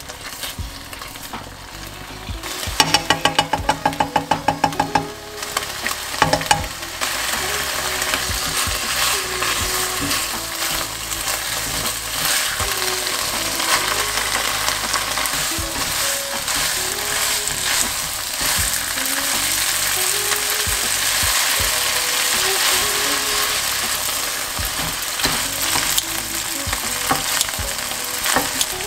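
Beef, bok choy and glass noodles sizzling in a nonstick frying pan, the sizzle getting louder about seven seconds in, with small clicks of tongs as the stir-fry is tossed. About three seconds in, a quick run of about a dozen sharp taps.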